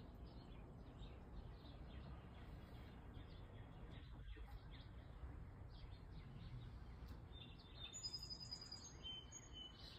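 Quiet outdoor ambience: faint birds chirping over a low steady background rumble, with a few clearer high whistled notes near the end.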